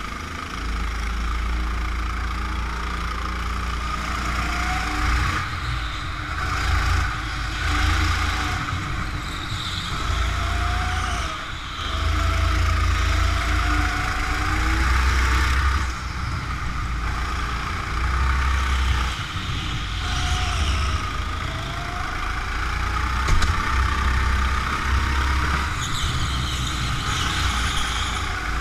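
Rental go-kart driven around an indoor track: its motor's pitch rises and falls over and over with accelerating and slowing through the corners, over a loud low rumble.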